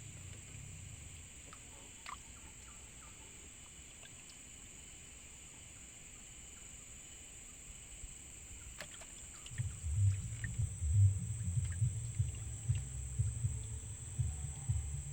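A steady high-pitched insect drone with a few small clicks. About ten seconds in, an irregular low rumbling with thumps starts and becomes the loudest sound.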